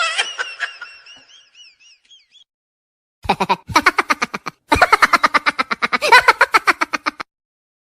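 Comedy sound effect: a warbling pitched sound fades out over the first two seconds, then after a brief gap comes a rapid run of pitched pulses, about nine a second, in three bursts that stop about a second before the end.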